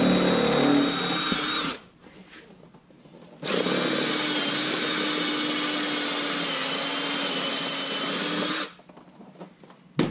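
Cordless drill with a step bit boring out a hole in a plastic A-pillar trim panel, enlarging it to pass a wiring connector. It runs steadily for under two seconds, stops, then runs again for about five seconds. A single knock follows near the end.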